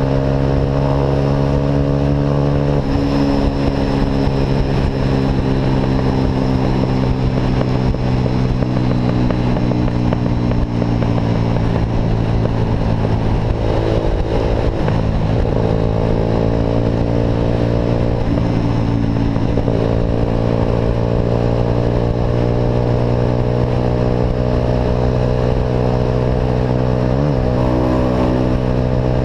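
Vehicle engine with an Atalla aftermarket sport exhaust droning while driving at a fairly even pace, its pitch shifting a little a few times as the revs change.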